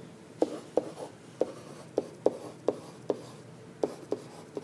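A stylus writing on a tablet's surface: about a dozen short, light taps and strokes at an uneven pace, two to three a second, as numbers and an arrow are written by hand.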